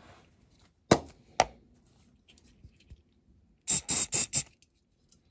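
Two sharp clicks, then four quick hissing puffs of glue activator sprayed from a pump bottle onto a freshly glued part to set the superglue.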